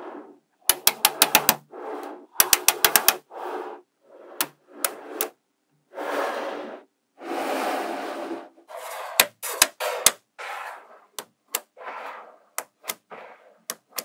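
Small magnetic balls clicking sharply as rows of them snap together, in quick clusters of clicks. Near the middle come two longer rattling, scraping stretches as rows are slid against each other.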